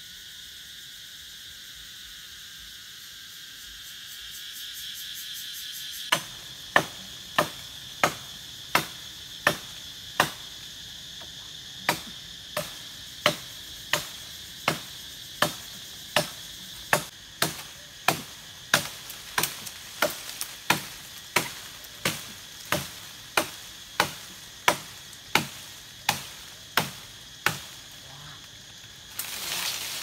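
Insects chirring steadily. From about six seconds in comes a long run of regular, sharp chopping blows, about three every two seconds. A brief burst of hiss follows near the end.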